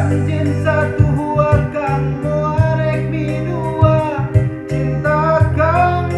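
Solo singing of a Sundanese pop song over guitar and bass accompaniment, with a steady ticking beat.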